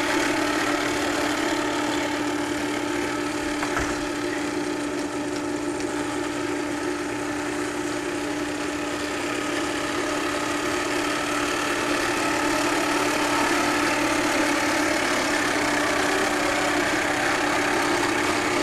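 Toy bubble lawn mower's small motor running, a steady unbroken buzz while it is pushed along.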